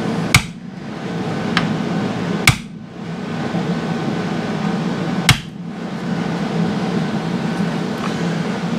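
A hammer strikes three sharp single blows, spaced about two to three seconds apart, over a steady background hum.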